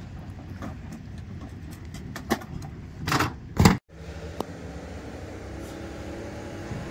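Truck engine idling, with a few sharp knocks and two short loud bursts of noise about three seconds in. After a momentary cut-out it carries on as a steady humming idle.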